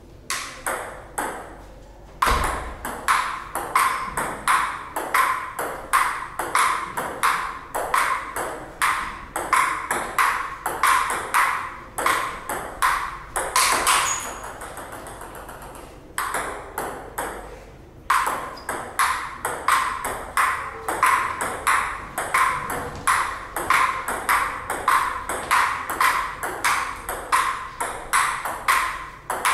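Table tennis ball clicking back and forth between bats and table in fast, regular rallies, about two to three clicks a second, with short pauses between points.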